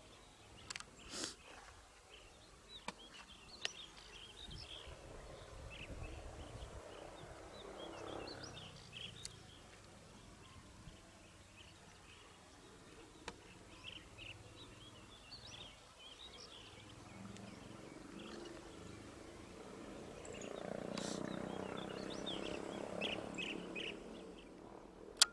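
Faint drone of a DEMU (diesel-electric multiple unit) train's diesel engine running on approach, swelling louder near the end, with birds chirping throughout.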